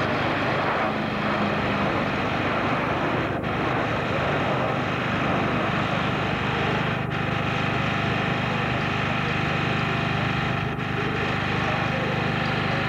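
Steady mechanical drone with a constant low hum, typical of a generator running near the microphone, mixed with the jet noise of a Boeing C-17 Globemaster III's four turbofans on a low display pass.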